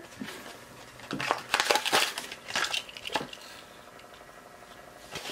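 Hot Wheels blister pack of card and clear plastic crinkling and crackling as it is pulled apart by hand, in a cluster of crackles about one to three seconds in.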